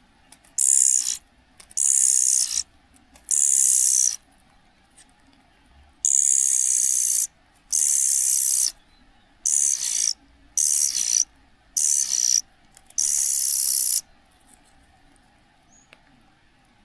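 Young cuckoo giving harsh, hissing begging calls, about nine in a row, each half a second to a second long with short pauses between, stopping about three seconds before the end.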